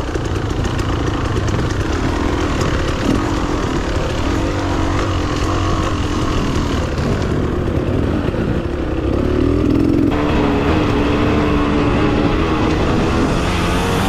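Beta Xtrainer 300 two-stroke dirt bike engine, its pitch rising and falling again and again as the throttle is worked over rough ground, heard close up with heavy rumble and noise.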